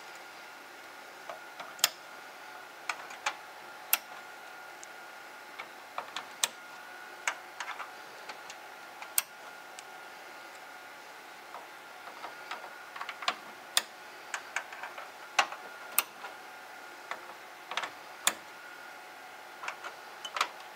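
Irregular sharp plastic clicks and light rattles as Cat 6 Ethernet patch-cable plugs are handled and snapped into the ports of a patch panel and a network switch.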